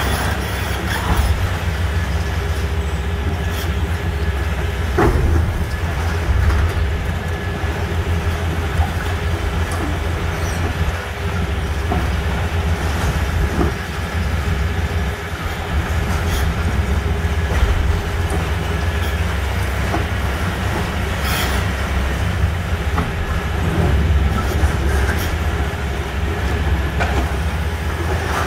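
Hitachi 490 demolition excavator's diesel engine running steadily under load with a faint steady whine, while its crusher jaw breaks concrete: crunching and falling rubble, with sharp cracks about five seconds in and again about twenty-one seconds in.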